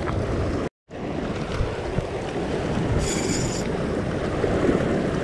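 Wind buffeting the microphone over sea swell washing against a rock ledge. The sound drops out for a moment near the start, and a short high-pitched buzz comes about three seconds in.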